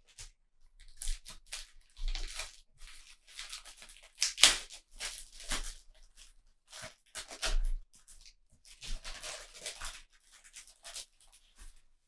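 Sticker album starter pack's packaging being torn open and handled: a run of irregular tearing and rustling sounds, with the sharpest tear about four and a half seconds in.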